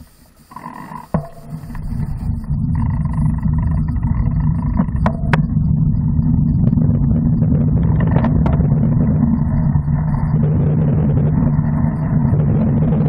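Wind buffeting the microphone of a bicycle-mounted camera while riding at about 20 to 24 km/h: a low rumbling noise that builds up about two seconds in and then holds steady, with a few sharp clicks.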